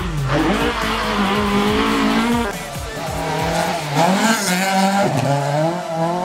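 Rally car engines at full throttle. The engine note climbs and drops several times as the drivers change gear.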